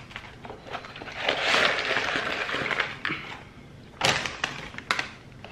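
Cardboard fast-food packaging being handled: a steady rustling and scraping as a sandwich box is opened, then a few sharp clicks and knocks as a fries carton is picked up and set about, starting around four seconds in.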